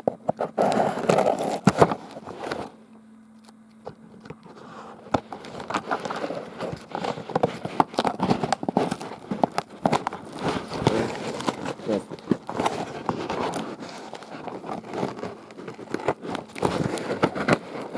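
A parcel being unpacked by hand: cardboard, tape and packing material rustle and crackle with irregular clicks and crinkles, with a short lull about three seconds in.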